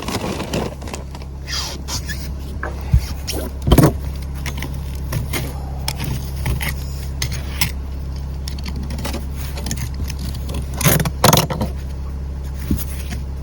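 Metal hand tools clinking, knocking and scraping against boat fittings, with sharp knocks about three and four seconds in and a pair of them near the end, over a steady low hum.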